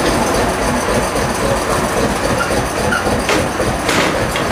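Narrow-gauge train running along the track: a steady rumble, with a couple of sharp wheel-on-rail clicks near the end.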